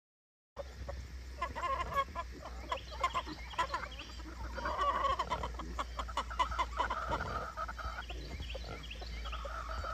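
Farm animals calling in a run of short, repeated calls over a steady low hum, starting about half a second in.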